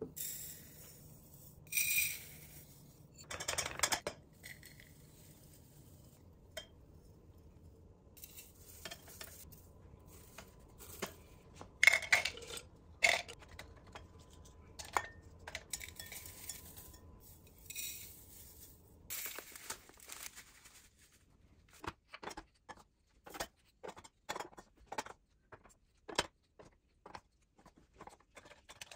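Dried herbs and spices poured into glass jars, rustling in short pours, with light clinks of glass. Near the end comes a quick run of small knocks as bamboo lids are set onto the glass jars.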